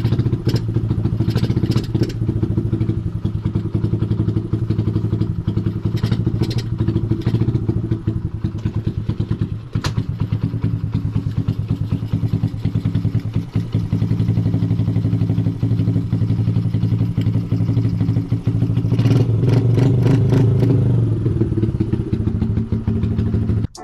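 Small motorcycle engine running steadily, getting a little louder about nineteen seconds in, with a few clicks and knocks.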